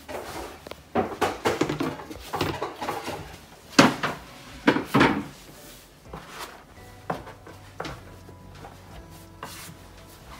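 Metal bench scraper knocking and scraping against a plastic tray of starch powder while mochi is cut into pieces: a run of sharp knocks, the two loudest about four and five seconds in, then softer scraping.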